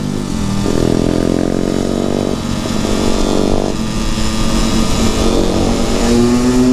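Motorcycle engine heard from on the bike, pulling through the gears: the note climbs, drops at a gear change, climbs again, then settles to a steadier pitch.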